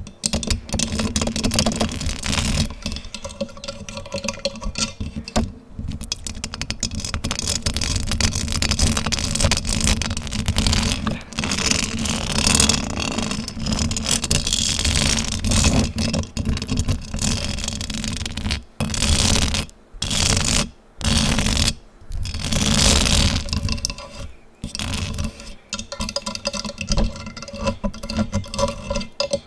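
Fingers scratching fast and hard directly on a microphone: a dense, continuous scratchy rasp, broken by several brief pauses in the second half.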